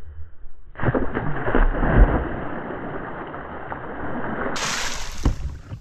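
Sea water splashing as a big tope is released and thrashes at the surface before swimming down. The splashing starts suddenly about a second in, with several sharp splashes and gurgling, and is loudest near two seconds.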